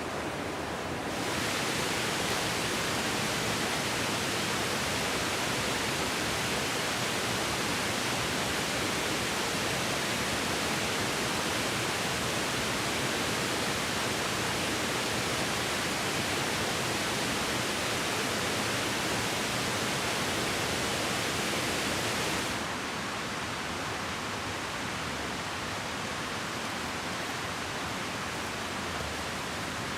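Steady hiss of heavy rain, a little louder from about a second in until about three-quarters of the way through, then dropping back slightly.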